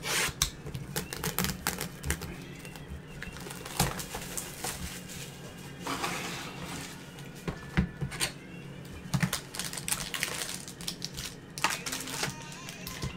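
Gloved hands handling and opening a box of 2021 Panini XR football trading cards: a run of clicks, taps and crinkling of cardboard and plastic wrapper, with a longer rustle about six seconds in.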